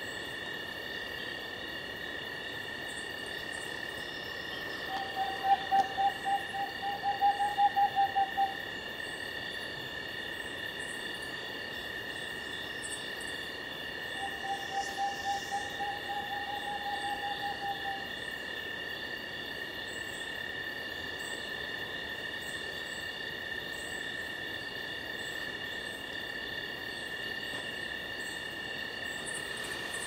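Rufescent screech-owl singing twice, each song a rapid trill of short hoots that rises slightly in pitch over about four seconds. The first song is louder than the second. A steady high-pitched drone runs underneath.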